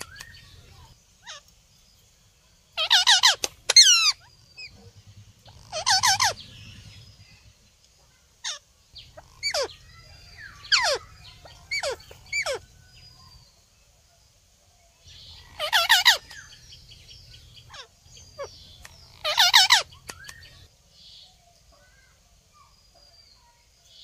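Indian ringneck parakeets (rose-ringed parakeets) calling: about five loud, harsh screeches, with a run of short falling whistled chirps partway through.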